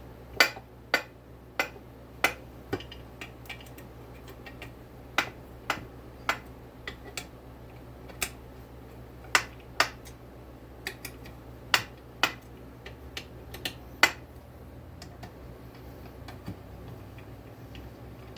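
Sharp, irregular metallic clicks and ticks as a cold crankshaft is pushed into the heated crankcase bearing and the engine case halves are drawn together. The clicks come every half second to a second, then thin out in the last few seconds, over a steady low hum.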